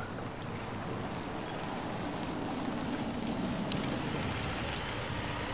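A car creeping slowly into a parking space, its engine humming at low revs over steady traffic noise, with a small click about four seconds in.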